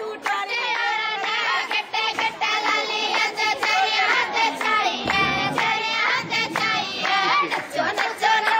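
A singer's voice over music, with hands clapping along in a steady beat.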